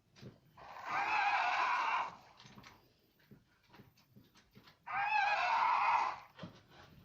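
Tyrannosaurus roar sound effect, played twice: two calls of about a second and a half each, a few seconds apart, each with a quavering, wavering pitch. Faint clicks sound between them.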